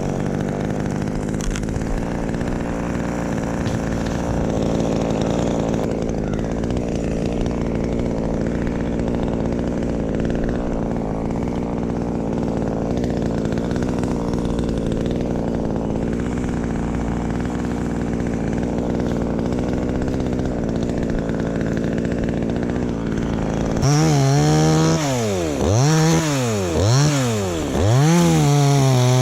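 Chainsaw engine running at a steady speed. About 24 seconds in it gets louder and is revved up and down three times, then held at high revs near the end.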